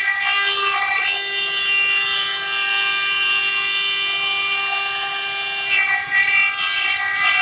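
Four-axis CNC stone-carving machine running, its spindle giving a steady high-pitched whine made of several tones held together.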